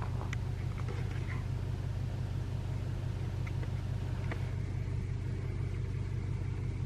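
Vehicle engine idling: a steady low hum with a few faint ticks.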